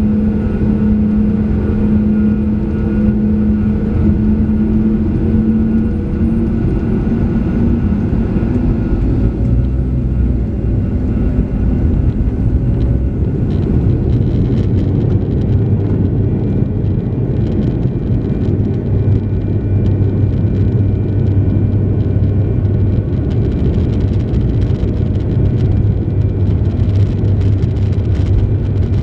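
Sukhoi Superjet 100's PowerJet SaM146 turbofan engines running at taxi power, heard from inside the cabin over the wing. A steady hum whose higher tone fades out in the first third while a deeper drone builds and holds through the second half.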